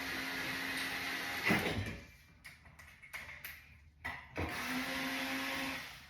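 A small electric power tool's motor running steadily in two bursts: the first stops about a second and a half in, and after a pause with a few light clicks the second starts about four and a half seconds in and runs for about a second and a half.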